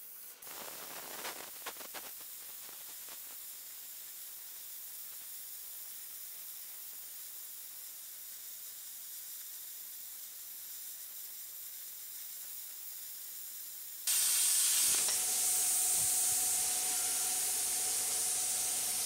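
Stel P80 plasma cutter, set to 70 A, cutting through a 20 mm iron plate: a steady hiss of the plasma arc and air jet, with a few crackles in the first couple of seconds. About 14 s in it turns abruptly louder and harsher, with a faint steady whistle.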